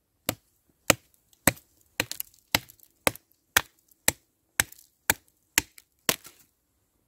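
A large Sami knife chopping into a dead branch: about a dozen sharp blows of blade on wood, evenly paced at roughly two a second, stopping about six seconds in.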